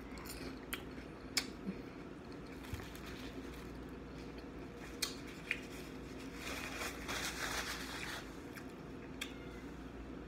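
Quiet eating sounds from a mouthful of spring roll: scattered lip smacks and chewing clicks. About six seconds in comes a couple of seconds of soft paper-napkin rustling as a napkin is rubbed over the mouth.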